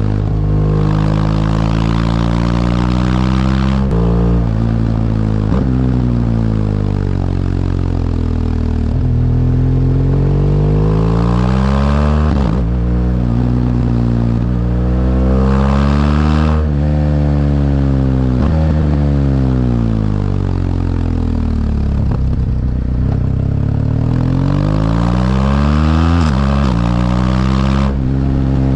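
BMW R1200GS LC's liquid-cooled boxer-twin engine under way, revving up and easing off again and again. The pitch drops abruptly at several gear changes.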